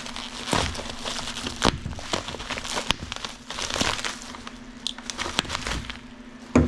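Packaging crinkling and rustling with irregular light knocks as coilover kit parts are unwrapped and handled.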